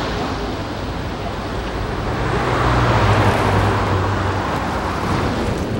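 City street traffic noise, with a motor vehicle passing close by; its engine hum and road noise swell about halfway through and then ease off.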